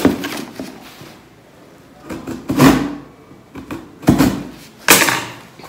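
Cardboard delivery box being opened and rummaged through: a few separate knocks and rustles of cardboard flaps and packaging, the loudest about two and a half seconds in and again about five seconds in.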